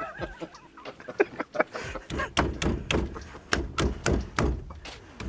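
Steering wheel being yanked and rocked by hand on its splined column shaft, knocking against the loosened retaining nut in a series of sharp thuds: irregular at first, then about three a second from about two seconds in. The wheel is stuck on the shaft and does not come off.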